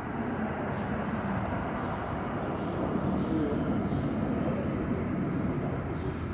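Steady low rumble of distant engine noise, swelling slightly about halfway through.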